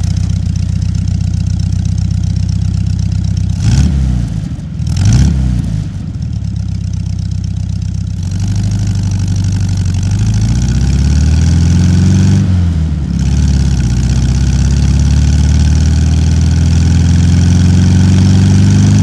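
An engine running, with two quick blips of the throttle about four and five seconds in, then the revs climbing slowly and steadily through the rest.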